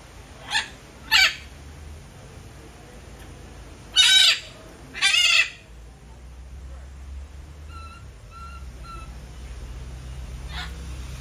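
Red-fronted macaw giving harsh squawks: two short calls near the start, two longer and louder ones around four and five seconds in, and another near the end. A faint three-note whistle sounds in between.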